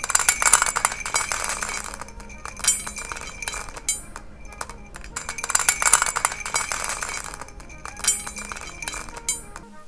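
Dry puffed rice and other small hard pieces pouring into a ceramic bowl: about four bursts of dense tiny clicks, each lasting a second or two.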